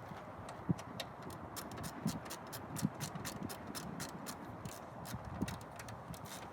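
A quick run of light clicks, about five or six a second, with a few soft low knocks underneath.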